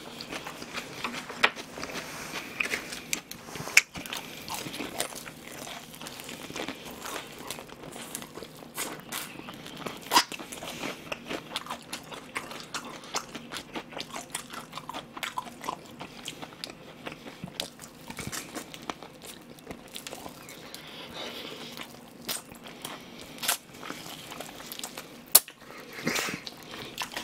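Close-miked biting and chewing of crisp-battered fried chicken: a steady run of small crackles from the crust, broken by a few sharper crunches.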